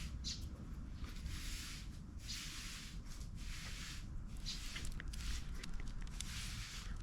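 Broom sweeping in repeated brushing strokes, roughly one a second.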